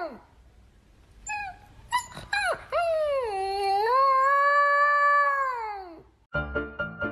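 A dog howling: a few short yips and whimpers about a second in, then one long howl that falls in pitch and dies away near the end. Piano music starts just before the end.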